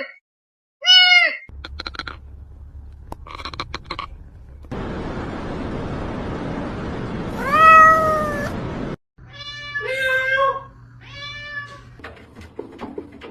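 Domestic cat meowing, about four separate short meows, one of them over a steady hiss in the middle.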